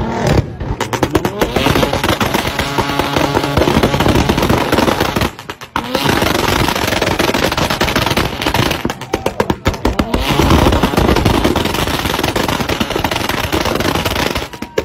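Tuned sports-car exhausts revving hard, with rapid strings of loud pops and bangs in quick succession like machine-gun fire, broken by a short lull about five and a half seconds in.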